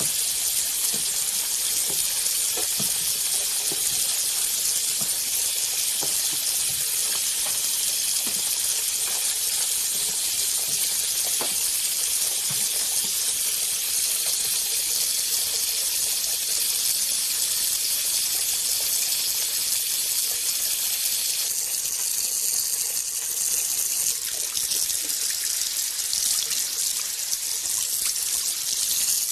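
Steady, unbroken rush of running water, with a few faint ticks in the first half; the sound changes slightly about 22 and 24 seconds in.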